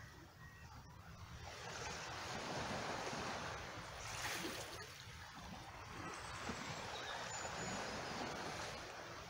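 Gentle waves lapping over rocks and cobbles on a calm sea shore, mixed with water trickling in a rock pool, the trickling louder than the waves. The sound swells and eases slowly.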